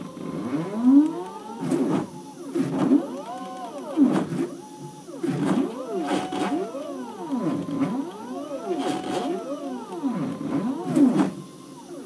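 Stepper motors of a homemade CNC machine whining as it traces circles with a pencil. The pitch rises and falls in repeated arcs as each axis speeds up and slows down around the circle, with sharp clicks between moves.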